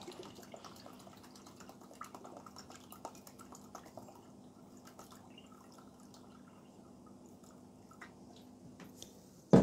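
Soaking solution poured from a jug into a shallow plastic tub of water, trickling and dripping faintly with small splashes. A low steady hum runs underneath.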